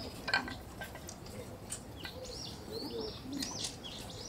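Small birds chirping in a run of short, arching high notes, with a sharp click about a third of a second in.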